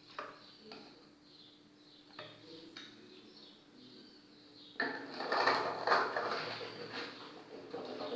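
A few light knocks and clicks, then about five seconds in a sudden louder stretch of rustling and clattering as things are handled.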